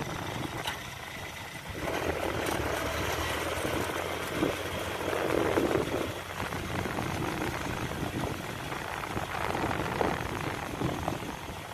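Engine of a cầu cào paddy mud-leveling rig running steadily as it drags its leveling board through flooded rice-field mud, with water and mud churning under it. It grows fainter near the end as the rig moves off.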